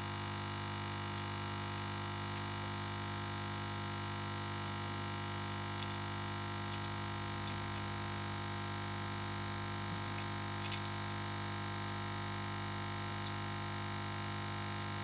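Steady electrical mains hum with many overtones, with a few faint ticks.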